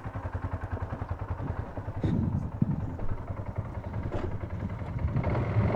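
ATV engine running at low speed with a steady low pulse, a few knocks from the machine over the rough trail, and the engine picking up near the end.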